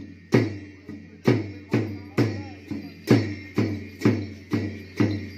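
Ache Lhamo dance accompaniment of a drum and cymbals beaten together in a steady, even rhythm, a little over two strokes a second. Each stroke is a low drum thud with a ringing cymbal clash that fades before the next.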